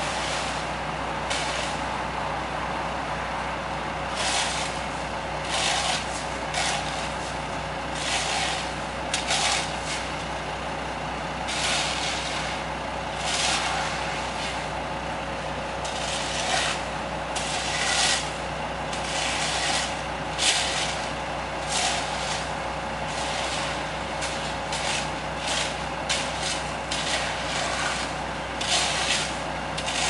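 Diesel engines of construction machinery, a tracked skid steer among them, running steadily, with irregular short hissing rushes every second or two.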